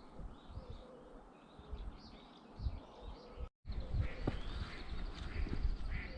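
Small birds chirping and calling in short rising and falling notes over a low rumble with dull thumps. The sound drops out completely for a moment about three and a half seconds in, and the low rumble is louder after that.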